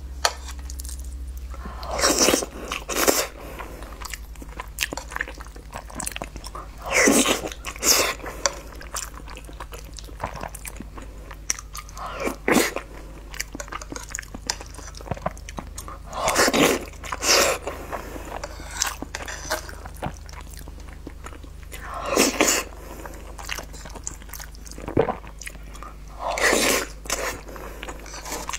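Close-miked eating of a soft, syrup-covered food from a spoon: loud bursts of biting and chewing mouth noise about every four to five seconds, often two close together, with small clicks and quieter chewing between them.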